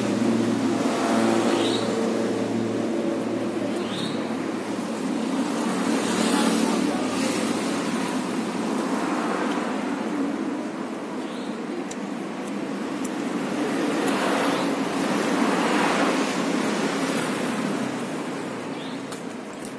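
Road traffic passing steadily, with vehicles swelling louder and fading away, loudest about six seconds in and again around fifteen seconds.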